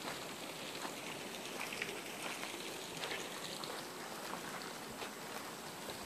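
Quiet outdoor ambience: a faint, even hiss with light ticks scattered through it.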